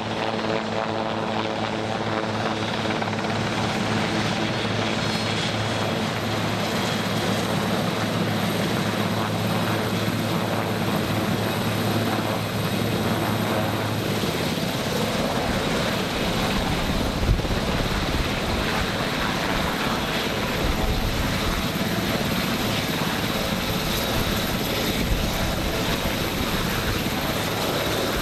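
Marine One, a Sikorsky VH-3D Sea King helicopter, hovering and coming in to land, its twin turboshaft engines and main and tail rotors running at a steady, loud level. A deeper low rumble builds in the second half as it comes down close to the ground.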